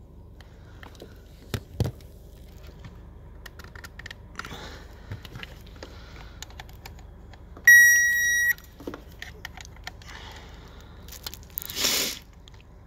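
Handheld circuit tester beeping once, a steady high tone of under a second, as its probe checks the power supply on the seat module's connector pins. Around it, small clicks and rustling from the probe and wiring being handled, with a short burst of rustling near the end.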